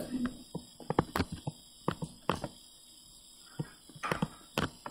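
Pen stylus tapping and scratching on a tablet screen while handwriting: a run of sharp, irregular ticks that pause for about a second midway and pick up again near the end.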